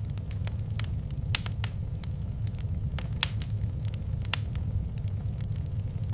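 Wood fire crackling in a fireplace: irregular sharp pops and snaps, three of them louder than the rest, over a steady low rumble.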